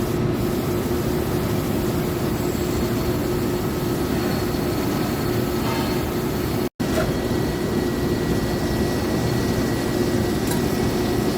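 Citizen K16 Swiss-type CNC lathe running a job: a steady machine hum with a constant tone. A very short dropout to silence comes a little past halfway.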